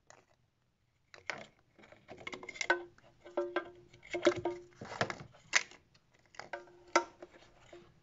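Thin plastic water bottle, cut down as a funnel, crackling and clicking as it is pushed into the neck of a plastic coolant expansion tank, with several short squeaks of plastic rubbing on plastic. It starts about a second in.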